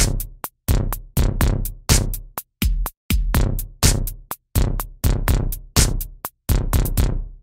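Electronic music made of drum machine hits: sharp stabs with deep bass, each dying away quickly, about two to three a second in an uneven rhythm, stopping near the end.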